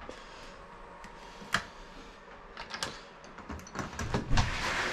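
Handling noise: scattered clicks and knocks from painting gear being carried and set about, with a rise of rustling noise near the end.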